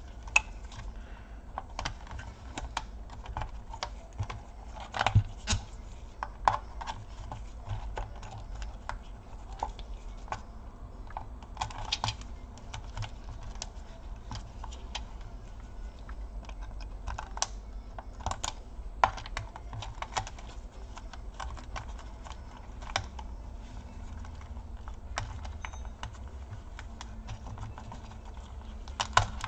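Irregular small clicks and taps of plastic and metal as a pry tool and gloved fingers unclip a laptop's wireless-card antenna cables and pull them out of their routing clips, with a few louder snaps scattered through.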